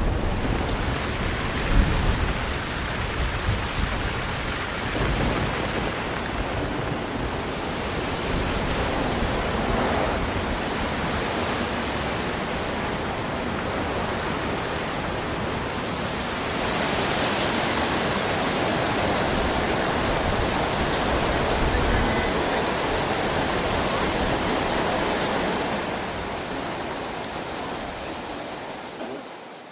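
Loud, steady wash of water noise, an even roar with no tone in it. It grows a little louder partway through and fades near the end. A few low thumps sound in the first couple of seconds.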